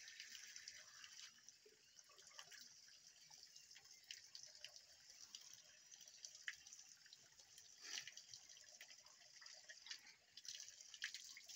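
Faint, steady stream of spring water running from an outlet pipe and splashing onto a tiled basin, with scattered drips and a few sharper splashes.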